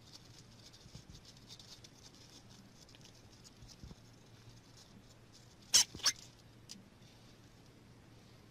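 Hamsters rustling and scrabbling in shredded paper bedding, a faint, light crackle. A little past halfway come two sharp clicks in quick succession.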